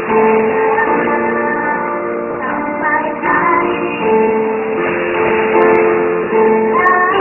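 Music led by a plucked acoustic guitar, with held notes that step from one pitch to the next.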